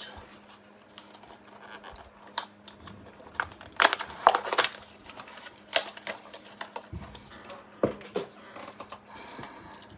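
Plastic blister packaging of a diecast car crinkling and clicking as it is handled and opened, with a louder burst of crackling about four seconds in. A faint steady hum runs underneath.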